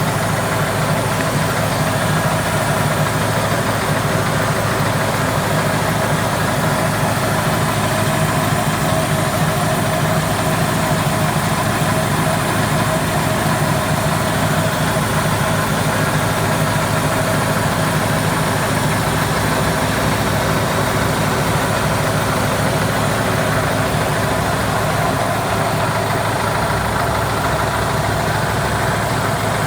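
Caterpillar 215 excavator's diesel engine running steadily, with a hissing sound from the valve compartment.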